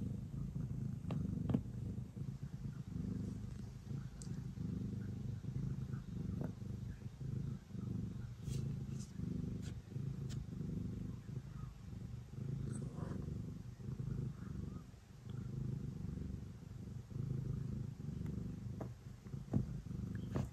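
Domestic cat purring steadily, close and low, in an even rhythmic rumble as it kneads, with a few faint clicks scattered through.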